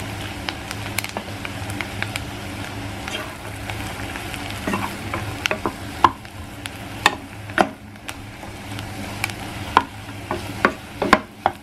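Mushrooms frying with onions in olive oil and butter in a pan, stirred with a utensil: a steady sizzle with sharp knocks of the utensil against the pan, more frequent from about halfway.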